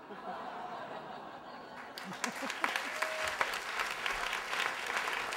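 Audience applauding, the clapping thickening and growing louder about two seconds in.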